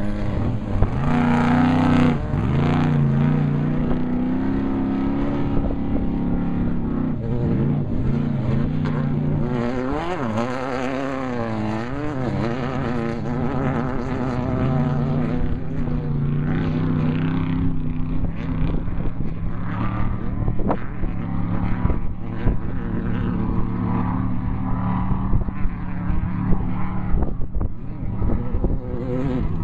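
Off-road race vehicle engines running hard at speed, their pitch rising and falling again and again over a steady rumble.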